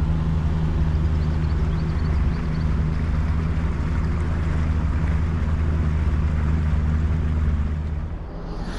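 Boat motor running steadily with a low, even hum, dying away about eight seconds in.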